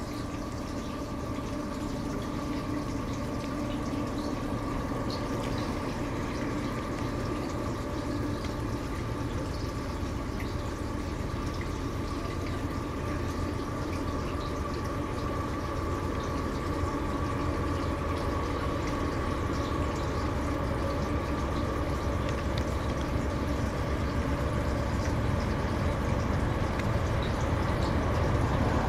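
Diesel locomotives at the head of a Canadian Pacific coal train, approaching with a steady engine drone that grows slowly louder.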